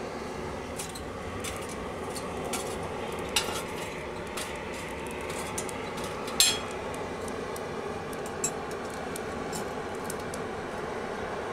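Iron bars and forge tools clinking and scraping in a blacksmith's coal forge as the coals are stirred and a workpiece is reheated, over a steady rushing noise. The clinks are scattered, and the sharpest, a bright ringing one, comes about six seconds in.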